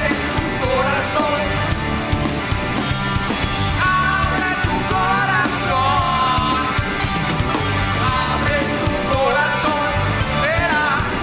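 Rock band performing a song live, with a sung lead vocal over a loud, steady full-band backing.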